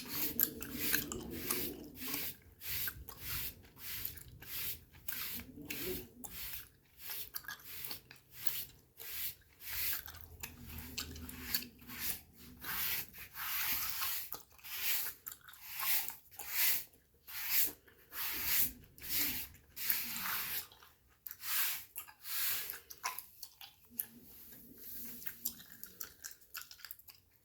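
Gum being chewed and smacked close to the microphone: wet, sharp mouth clicks and smacks, irregular, about one or two a second.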